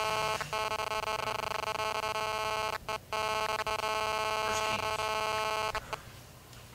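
A steady electronic buzz made of many even overtones at one fixed pitch. It drops out briefly twice and cuts off suddenly about six seconds in.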